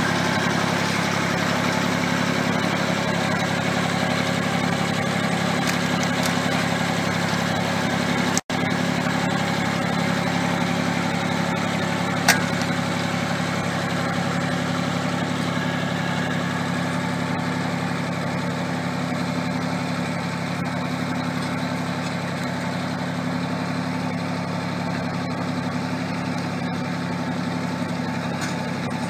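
Compact tractor's engine running steadily at low, even speed while it pulls a pipe-laying plough through turf. The sound drops out for an instant about eight seconds in, and there is a single sharp click about twelve seconds in.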